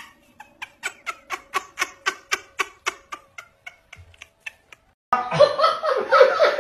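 A dog paddling its front paw in a tub of water: quick, even splashes about four a second that tail off after about four seconds. About five seconds in, louder voices take over.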